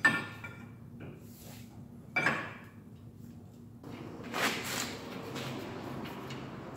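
Close-up handling noise: a short metallic clink about two seconds in, then a rustling scrape, as the camera brushes against a shirt while work goes on at the steering knuckle.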